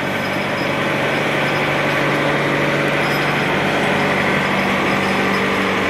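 An engine idling steadily, an even, unchanging hum.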